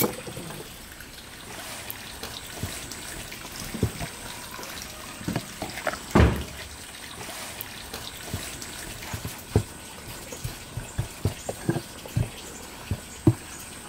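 Dough being handled on a floured wooden board: soft thumps and knocks as it is pressed, folded and set down, the loudest about six seconds in and several in quick succession near the end, over a steady background hiss.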